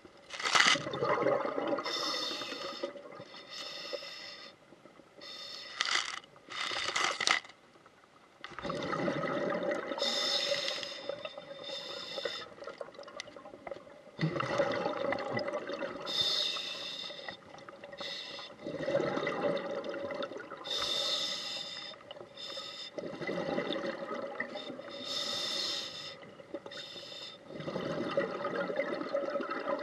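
Scuba diver's regulator breathing underwater. Each inhale gives a hiss through the regulator, and each exhale a rush of bubbles, in a slow cycle of about one breath every four to five seconds.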